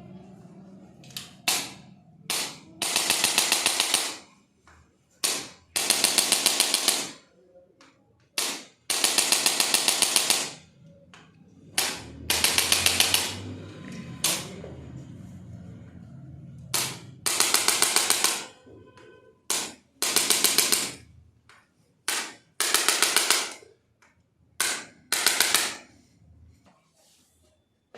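Handheld percussive treatment device rattling against the body in repeated bursts of rapid tapping, each burst one to two seconds long, several of them led by a single short tap.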